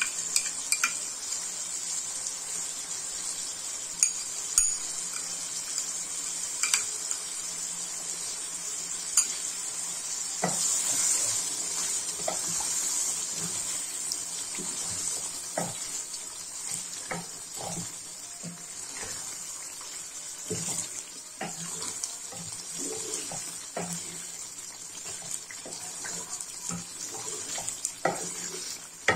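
Chicken curry with almond paste sizzling steadily as it fries uncovered over a raised flame in an aluminium handi, with a wooden spatula scraping and knocking against the pot as it is stirred.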